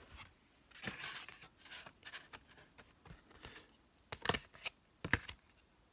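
Cardboard CD case being handled and folded open: soft rustling and scraping, then a few sharp clicks and taps in the last couple of seconds.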